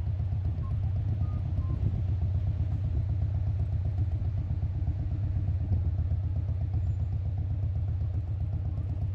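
Steady low rumble of a car's engine heard from inside the cabin in slow, stop-start traffic.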